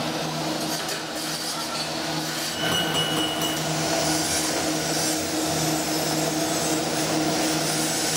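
A steady low machine hum with a constant hiss over it, growing a little louder about two and a half seconds in, with a brief high whistle-like tone around three seconds.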